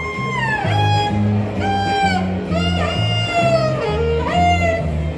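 Jazz-style instrumental music: a lead line of held notes that slide in pitch, over a bass line stepping in a steady rhythm.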